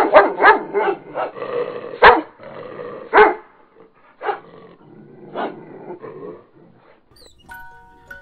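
A dog barking in a rapid string of short barks, loudest about two and three seconds in, thinning out after about six seconds. A few chiming music notes come in near the end.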